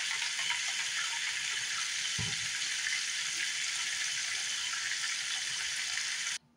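Flour-dredged cube steaks sizzling in hot oil in a cast-iron skillet: a steady, crackling hiss, with one low thump about two seconds in. The sizzle cuts off suddenly near the end.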